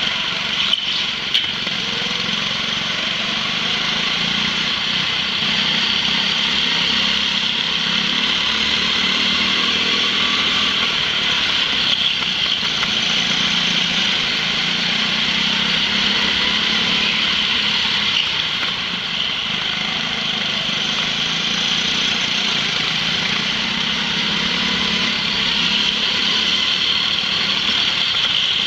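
Go-kart engine running steadily at racing speed, picked up by a camera mounted on the kart, with other karts close by. A couple of short sharp knocks come about a second in, and the engine note eases briefly about two-thirds of the way through.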